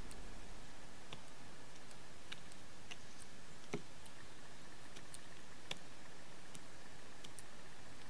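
Blue jay pecking at seed on a wooden bird table: irregular sharp taps, one a little stronger just before the middle.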